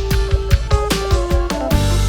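Background electronic music with a steady drum beat and sustained synth notes.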